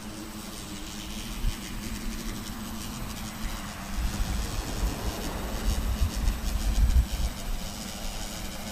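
Electric quadcopter motors and propellers spinning up for takeoff, then a steady buzzing whine as the drone climbs and hovers. A low rumble swells midway and fades again.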